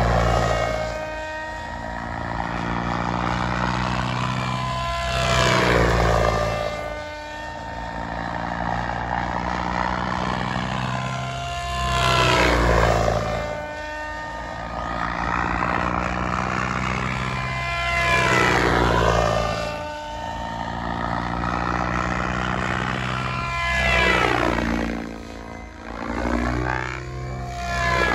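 Radio-controlled model airplane's motor and propeller flying repeated fast passes overhead, about five in all, roughly every six seconds. Its pitch swoops down and back up and its level swells with each pass.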